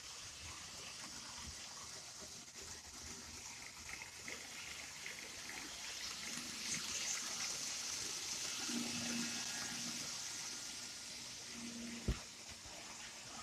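N-gauge model train running on the layout's track: a steady whirring hiss that swells in the middle, with a brief low motor hum twice and a single sharp knock near the end.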